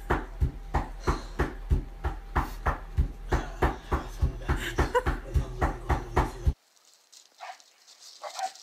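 A small dog breathing hard in quick, even pants, about three a second. It cuts off abruptly about six and a half seconds in, and only faint sound follows.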